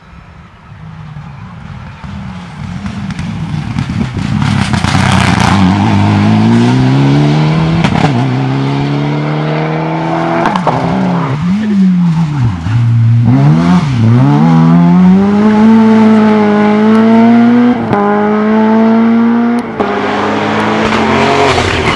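A rally car's engine approaching at full throttle, the revs climbing through several gear changes. In the middle the revs drop and swing up and down as it brakes and downshifts for a bend, then climb again. There are short sharp cracks at several of the shifts.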